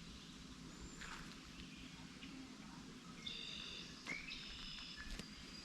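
Faint bird calls: high, steady-pitched notes starting about three seconds in and running for a couple of seconds, with a short rising note partway through, over quiet outdoor background.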